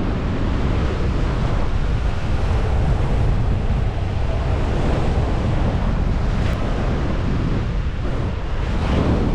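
Wind rushing and buffeting against the microphone in flight under a small paraglider-type wing, a steady low rumbling rush with no engine.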